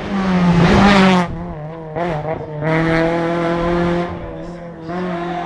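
Rally car engine at high revs on a tarmac stage. The note drops and picks up again several times between bursts of full throttle.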